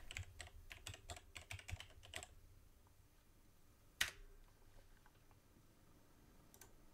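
Computer keyboard being typed on quietly: a quick run of key clicks for about two seconds, then a single louder click about four seconds in.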